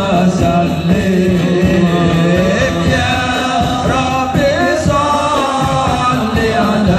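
Live marawis: a group of men chanting a devotional song in unison over hand drums, amplified through Yamaha DBR15 powered PA speakers.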